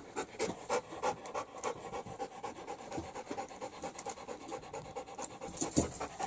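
A dog panting rapidly, short quick breaths in and out, with its mouth open and tongue out.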